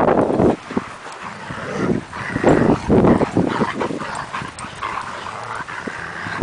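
Dogs playing and making short vocal sounds, with a few louder bursts about two and a half and three seconds in.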